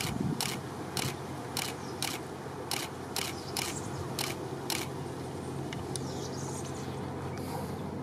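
Boeing 747 jet engines at takeoff thrust, heard from afar as a steady low rumble. Over it, a regular series of sharp clicks, about two a second, stops about five seconds in.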